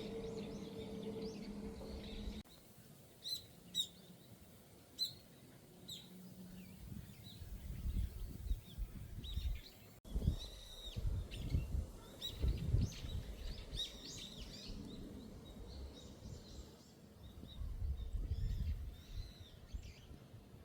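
Small birds chirping and calling, short high notes that come sparsely at first and then thicker about halfway through, over a low rumbling. A steady low hum fills the first couple of seconds and cuts off.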